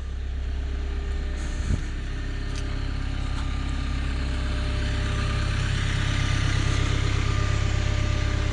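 Caterpillar 317 excavator's diesel engine idling steadily, growing a little louder about five seconds in.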